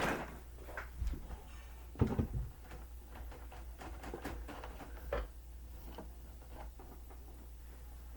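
Scattered knocks and light rustling from objects being handled and bumped around a computer desk, the loudest knock about two seconds in and another about five seconds in, over a steady low hum.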